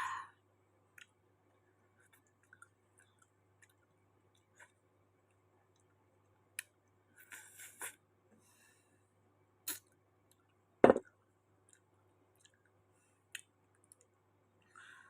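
Close-up eating sounds: scattered small mouth clicks, a short crunchy rustle a little past seven seconds in, and one sharp knock about eleven seconds in.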